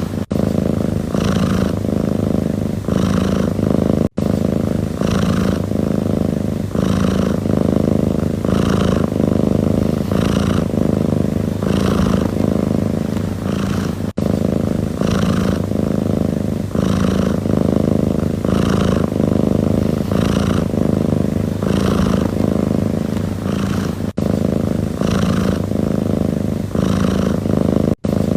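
Domestic cat purring steadily and close up, swelling about once a second with each breath in and out. The sound cuts out for an instant three or four times.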